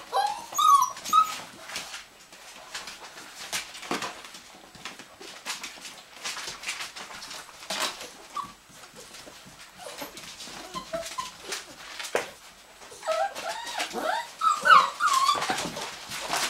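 Six-week-old puppies whimpering and squeaking in short cries that bend up and down as they crowd in to nurse, with scattered sharp clicks between. The cries come at the very start and again in a cluster near the end.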